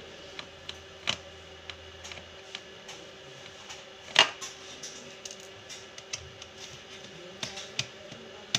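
Irregular small clicks and taps of a screwdriver working the bottom-case screws of an HP 15 laptop, the loudest about four seconds in, over a faint steady hum.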